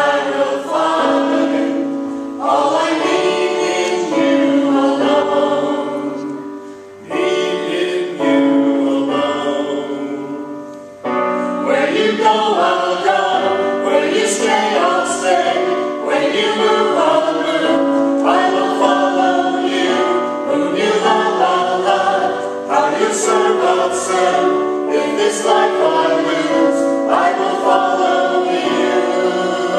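A church music team singing an anthem as a choir. The singing dips briefly about seven seconds in and again around eleven seconds before carrying on.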